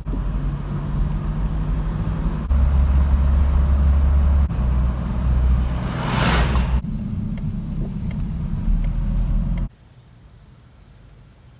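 Peugeot 306 XSi's four-cylinder engine and road noise while driving, the engine note stepping up and down a few times, with a brief rushing noise about six seconds in. Near the end it cuts to a much quieter scene with crickets chirping steadily.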